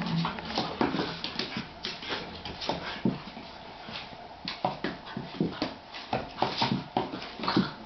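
Two whippets play-fighting on a parquet floor: claws clicking and paws scrabbling on the wood in irregular bursts, with small dog noises mixed in.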